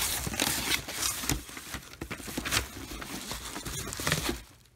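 Bubble wrap and cardboard packaging rustling and crinkling, with many small sharp clicks, as hands rummage in a shipping box and lift out a boxed toy. The rustling stops near the end.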